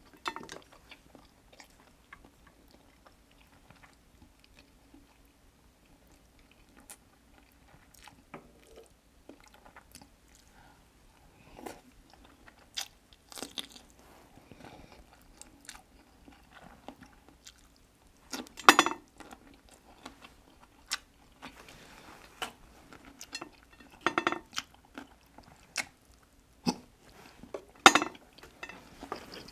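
A person eating close to the microphone: chewing and biting with scattered small clicks and several louder crunches, the loudest about two-thirds of the way through and near the end.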